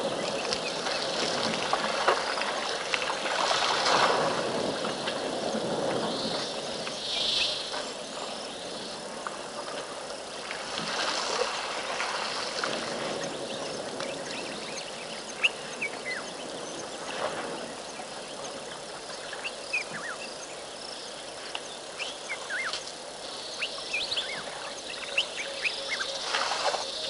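Birds chirping in short, quick calls over a steady outdoor hiss, with a few sharp snaps.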